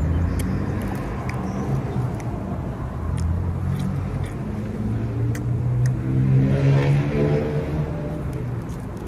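A car engine running, its pitch climbing as it accelerates, loudest about seven seconds in.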